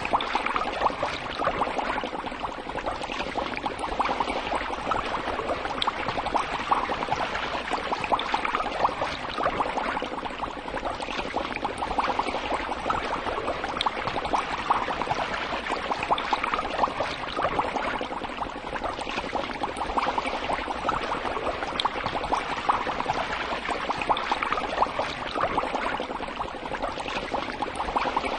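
Aquarium water bubbling and trickling steadily, a continuous fizzing splash of bubbles and moving water.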